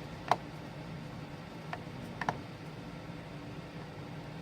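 A few small, sharp clicks of a precision screwdriver and a tiny screw against an iPhone 4S's frame while a screw is being worked into place: one louder click just after the start, then a single click and a quick double click around two seconds in, over a steady low hum.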